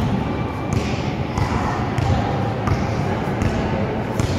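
Basketball bouncing on a concrete court: a handful of sharp bounces at uneven intervals, over background voices.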